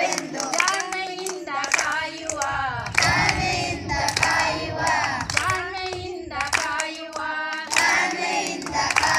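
Background music: voices singing a Kannada song, with sharp clap-like accents through it.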